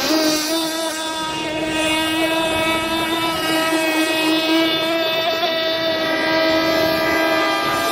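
Radio-controlled model boat's small motor running flat out, a steady high-pitched buzzing drone that holds nearly one pitch.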